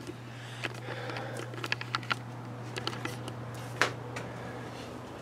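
A steady low machine hum, with scattered light clicks and knocks from the camera being carried and handled. The sharpest knock comes about four seconds in.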